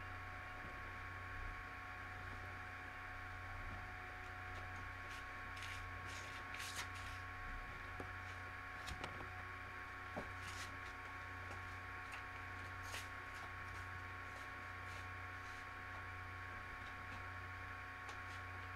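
Steady electrical hum and hiss with a couple of faint steady tones. A scattered handful of faint short clicks comes through in the middle.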